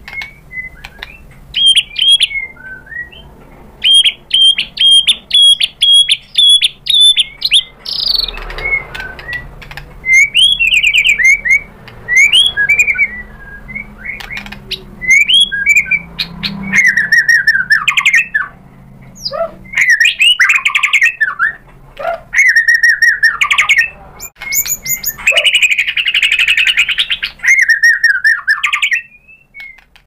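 White-rumped shama (murai batu) singing a loud, varied song: a long run of fast repeated high notes, then whistled phrases and trills separated by short pauses.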